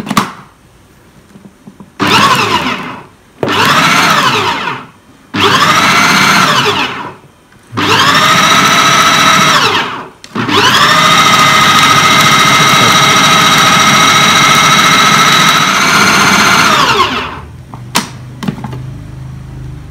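Idealife IL-222 800 W electric food processor blending beef and tapioca flour into meatball paste. It gives four short bursts, each whine rising as the motor spins up and falling as it stops. Then comes one long steady run of about seven seconds that winds down near the end.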